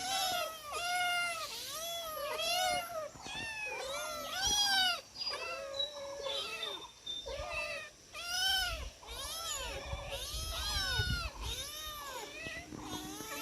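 Several domestic cats meowing over and over, short rising-and-falling meows about two a second, often overlapping: cats begging at feeding time.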